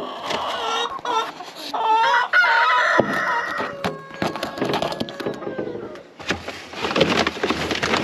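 Chickens clucking, with one long rooster crow about halfway through. A dense rustling noise follows near the end.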